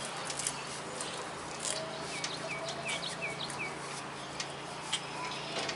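A bird chirping five short, falling chirps in quick succession a couple of seconds in, over a steady low hum. Scattered light clicks run through it, the loudest about half a second in and near the end.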